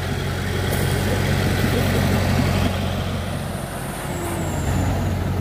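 Light dump truck's diesel engine running steadily.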